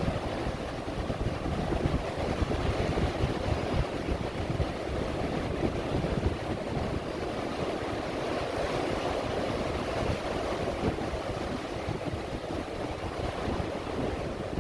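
Ocean surf washing and breaking against the pilings of a wooden pier: a steady, continuous rushing with a low rumble. Wind buffets the microphone throughout.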